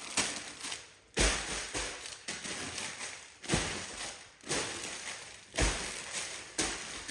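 Packaging and items being handled and unwrapped, with crinkly rustling bursts and a few low thuds, about once a second.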